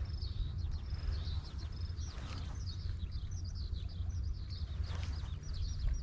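Small birds chirping in quick, repeated short calls over a steady low rumble.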